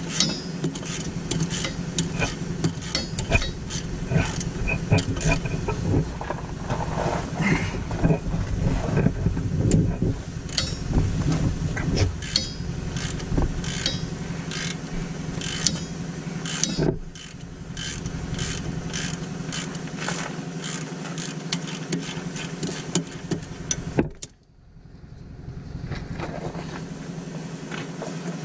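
Hand ratchet with a 15 mm socket clicking rapidly as it backs off the sway bar bushing bracket bolts, over a steady low hum. The clicking stops shortly before the end.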